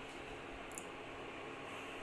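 Quiet room tone: a faint steady hiss with a low hum, and one light click about three-quarters of a second in.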